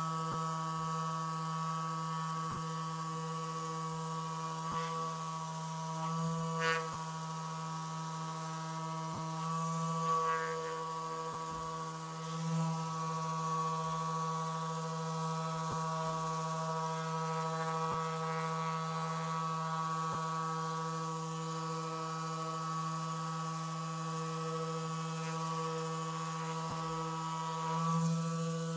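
Rapid Release Therapy handheld vibration device running with a steady buzzing hum while held against the muscles around the shoulder blade, with a few faint ticks.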